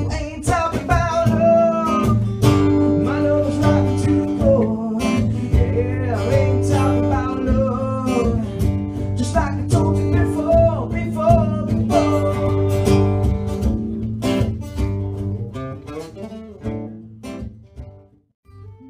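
A man singing over a strummed acoustic guitar. The singing stops after about twelve seconds; the last guitar strums grow quieter and the song ends near the end.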